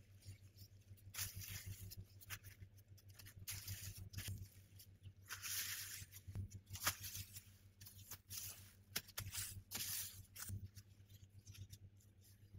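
Faint rustling, scraping and soft taps of hands working pastry dough on a wooden board, over a steady low hum.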